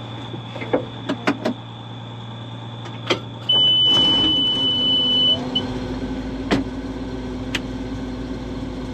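In a Case IH combine's cab: a few sharp clicks, then a loud steady electronic beep of about two seconds, after which a steady low machine hum carries on.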